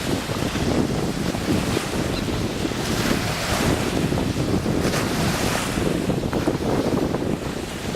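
Sea waves washing, with wind buffeting the microphone; two louder washes come about three and five seconds in.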